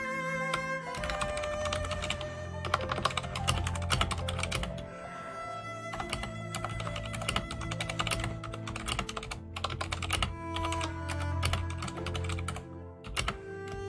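Typing on a computer keyboard: quick runs of keystrokes broken by brief pauses, over soft cello background music.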